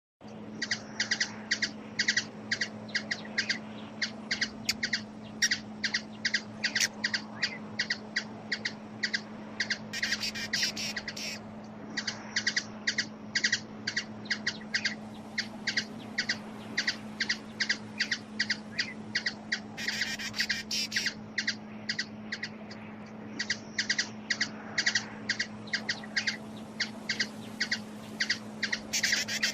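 A bird giving short, sharp chip calls, two to three a second, in long runs, broken twice by a second or so of rapid, dense chattering. A steady low hum lies underneath.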